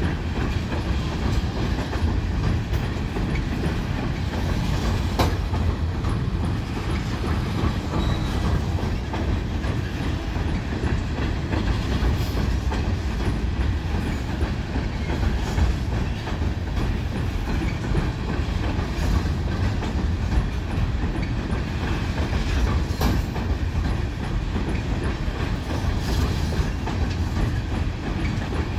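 Train of railroad tank cars rolling slowly across a steel girder bridge: a steady low rumble with a few sharp clicks of wheels over rail joints.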